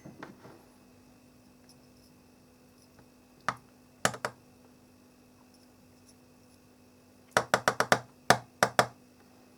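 Small sharp clicks and taps of hand tools on the workbench while solder is being stripped off a wire: one about three and a half seconds in, a pair around four seconds, then a quick run of about seven near the end. A faint steady hum runs underneath.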